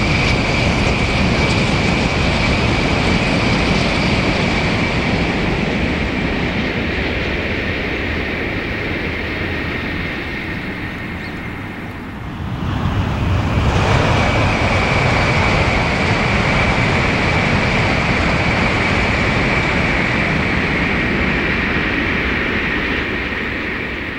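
Tokaido Shinkansen bullet train passing at speed: a loud steady rush with a high whine, fading slowly. It drops off about twelve seconds in, and a second rush builds up a second or two later and fades again.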